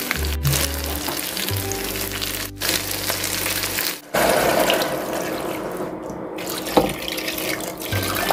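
Pork belly sizzling in a hot pot. About four seconds in, after a brief drop, dark soy-based braising sauce is poured in over it with a steady splashing pour. Background music with a low bass line plays throughout.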